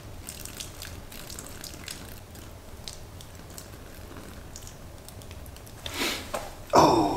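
Ravioli cooking water being drained from a pan onto rock, trickling and dripping in many small splashes. A louder short sound breaks in near the end.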